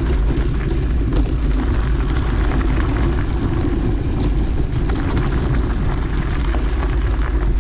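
Wind rumbling over the microphone while moving fast along a dirt trail: a steady low rush, with many small clicks and rattles over it.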